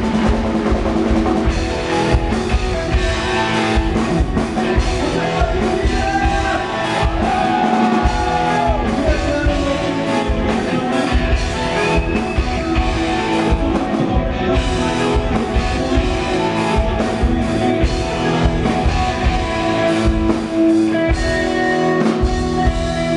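Rock band playing live: a drum kit pounding steadily under electric guitars and bass.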